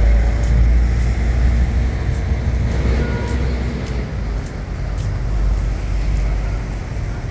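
Outdoor street noise: a steady, loud low rumble with a general hiss of city ambience, without distinct events.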